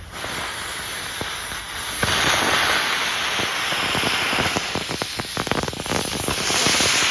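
Small ground-novelty firework hissing as it sprays, getting louder about two seconds in, with a run of rapid crackles in the middle.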